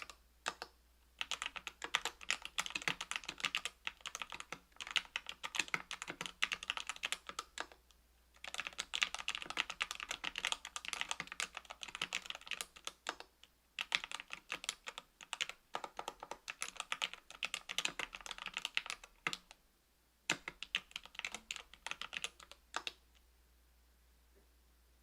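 Typing on a 65% aluminium keyboard with Equalz C³ Macho 62 g linear switches, lubed with Krytox 205g0, under GMK keycaps. Runs of rapid keystrokes are broken by short pauses, and the typing stops about two seconds before the end.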